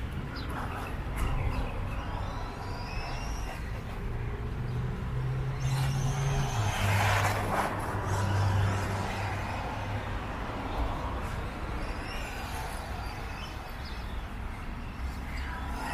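Wltoys A959 1:18 RC buggy with a stock 390 brushed motor driving on asphalt: the motor whine rises and falls with the throttle over a low engine hum that steps down in pitch about halfway through.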